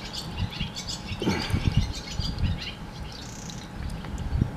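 Small birds chirping repeatedly in short high calls, with irregular low thumps mixed in.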